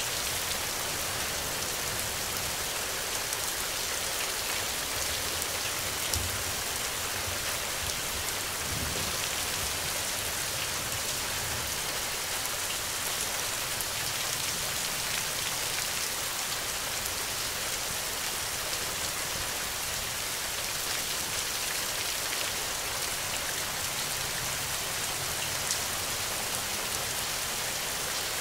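Steady rain falling, an even hiss with scattered drops ticking through it.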